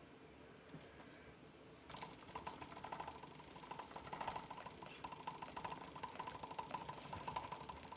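Computer mouse button clicked as fast as possible, about twelve clicks a second, starting about two seconds in, during a click-speed test.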